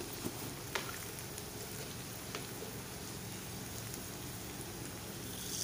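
Sliced onions and green chillies sizzling steadily in hot oil in a kadai, with a few faint crackles; the onions have fried to golden brown.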